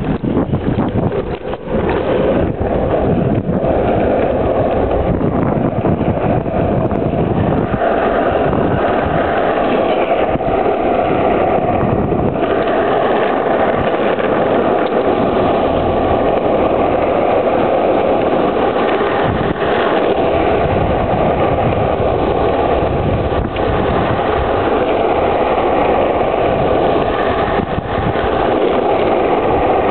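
Longboard wheels rolling fast down an asphalt hill: a steady rolling rumble that runs on without a break.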